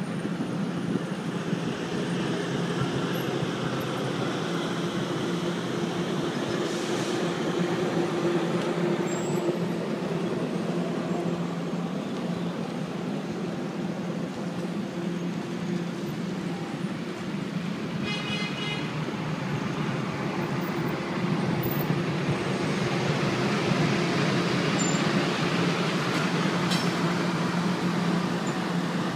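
Ringling Bros. circus train passenger cars rolling slowly through a road grade crossing: a steady rumble with a constant low hum.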